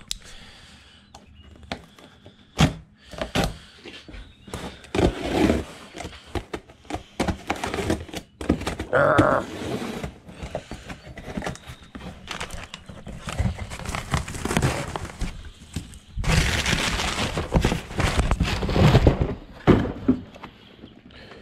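Cardboard shipping box being handled and torn open by hand: scattered thunks and clicks with short bursts of rustling and tearing, then a longer stretch of cardboard rustling and scraping near the end as the inner box is pulled out.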